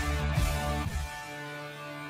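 A short music sting for a logo card: it starts suddenly with a low hit and a struck chord, then the chord rings on, held and slowly settling.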